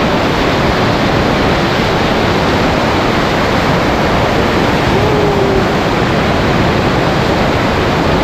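Fast water from an old irrigation canal rushing and pouring in a strong current, a loud, steady rush close to the microphone.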